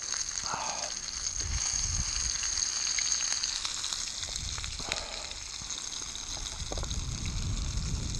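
Fish pieces sizzling as they fry in oil in a frying pan on a portable gas camp stove, a steady high hiss. A few light clicks of metal tongs come through it.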